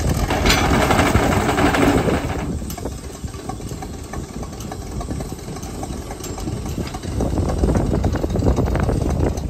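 Engine of a small industrial switcher locomotive running: louder and harsher for the first two seconds or so, then settling to a low, pulsing rumble that grows louder again near the end.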